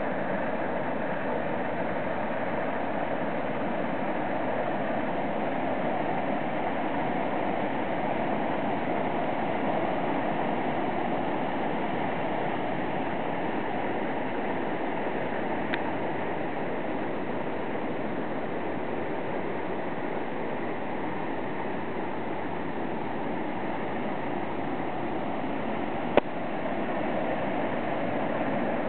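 Steady rush of a white-water mountain river far below, an even, unbroken noise with no change in level. Two short clicks cut through it, a sharper one near the end.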